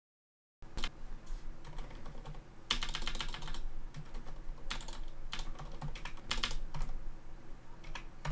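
Typing on a computer keyboard: irregular key clicks, some in quick runs, starting about half a second in after a moment of silence.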